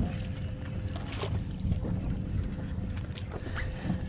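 Steady low rumble of wind and water around a small fishing boat, with a faint steady hum and scattered light clicks and knocks.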